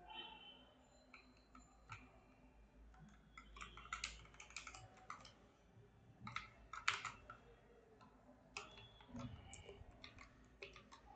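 Faint computer keyboard keystrokes, scattered single taps and short clusters, as lines of code are selected, copied and pasted.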